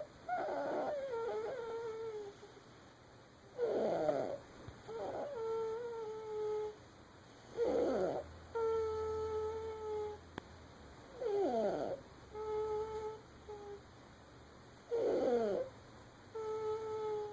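Baby snoring in sleep, five breaths about four seconds apart: each a falling rasp followed by a steady pitched hum lasting about a second and a half.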